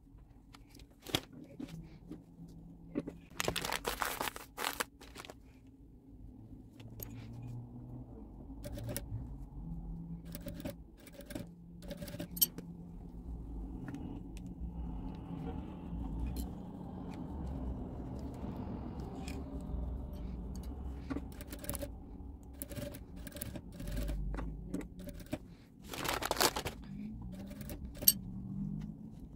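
Industrial single-needle lockstitch sewing machine stitching binding onto a quilted mat, running steadily for several seconds in the middle, with fabric rustling and handling clicks before and after.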